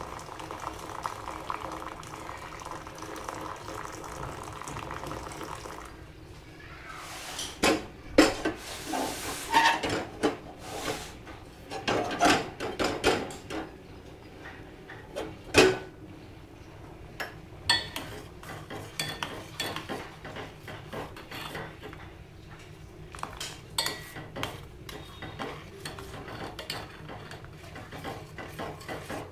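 Milk poured into a steel pot of simmering tea, a steady liquid sound for the first few seconds. Then stainless steel vessels clank loudly several times, followed by a metal spoon stirring the tea in the steel pot with many light clinks and scrapes.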